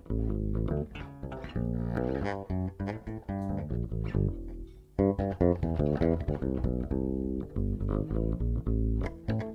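Electric bass guitar and guitar playing an instrumental introduction in plucked notes, with a brief lull about five seconds in before the playing picks up again.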